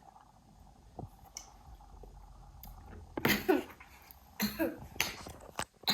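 A person coughing several times in a row. The loud, short coughs start about halfway in.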